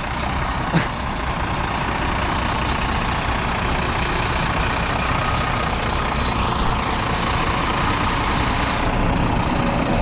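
Renault tractor unit's diesel engine running steadily as the truck is driven round a tight turn. A single brief click about a second in.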